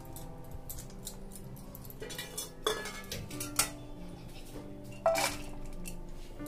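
A stainless steel plate clinking and scraping against a steel bowl as dry puffed-rice snack mix is scooped, with a few sharp clinks; the loudest is about five seconds in. Soft background music with held notes plays underneath.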